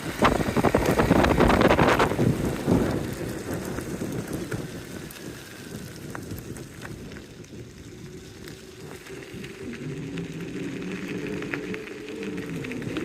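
All-terrain electric skateboard rolling over a rough dirt track, loud with crackling and rumbling for the first few seconds, then quieter. Near the end a pitched electric motor whine comes in, rising and falling with speed.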